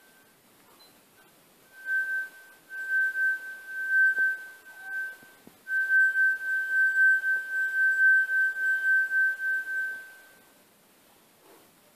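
A wine glass partly filled with water singing under a wet finger rubbed around its rim: one high, pure ringing tone that swells and fades about three times a second. It starts about two seconds in, breaks off briefly around the middle, and dies away near the end.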